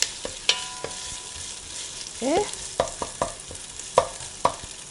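Sliced onions sizzling in hot oil in an enamelled cast-iron pot while a wooden spoon stirs them, with a steady hiss of frying. The spoon knocks and scrapes against the pot five or six times.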